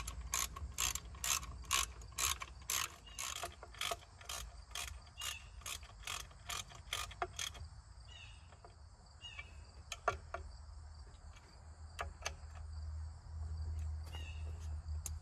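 Ratchet wrench clicking at a steady pace of about two clicks a second as it is worked on a fastener. The clicking stops about halfway through, and a few single clicks follow later.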